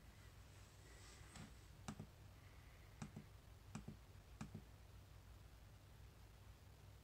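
Faint clicks from the push-button knob of a Kweld spot-welder control board, pressed to step through its calibration menu. There are about six sharp clicks between about two and five seconds in, some of them in quick pairs.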